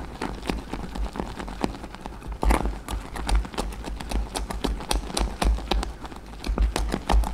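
Wooden spoon stirring a thick, foamed dalgona candy mixture fast in a stainless steel saucepan, knocking and scraping against the pan's sides in a quick, irregular clatter with dull thumps.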